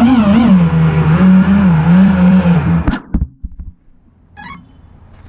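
Racing quadcopter's brushless motors and 5-inch props whining hard, the pitch wavering up and down with the throttle, then cutting off suddenly with a knock about three seconds in as the quad finishes its run.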